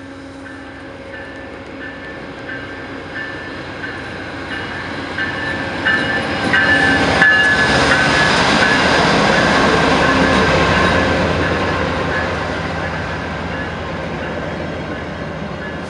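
VIA Rail passenger train, led by a GE Genesis P42DC diesel locomotive, approaching and passing. The engine and wheel-on-rail noise swell to a peak about seven seconds in as the locomotive goes by. Then the LRC coaches rumble past, slowly fading, with a repeated high ringing about every two-thirds of a second during the approach.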